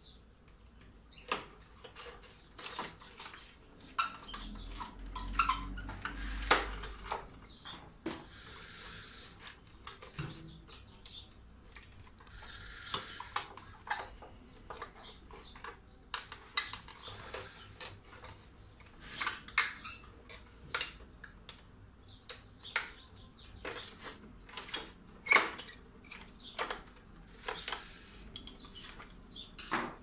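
Irregular clicks, taps and a few short scrapes of hand work on a drum vacuum cleaner's motor head: a screwdriver working the wire terminal block, and plastic housing parts being handled and pressed into place.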